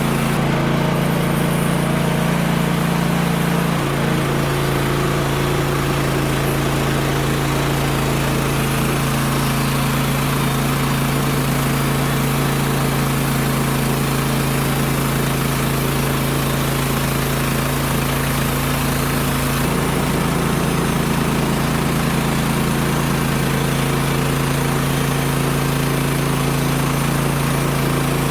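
The Woodland Mills HM126 bandsaw sawmill's small gas engine running steadily, its pitch shifting slightly about four seconds in and again about twenty seconds in.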